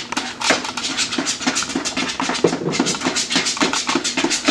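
Spoon stirring thick cake batter quickly in a plastic mixing bowl: a rapid run of scraping clicks, several a second.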